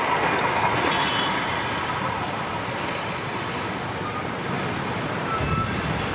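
Steady rolling noise of a passing LHB-coached train, easing slightly after about a second.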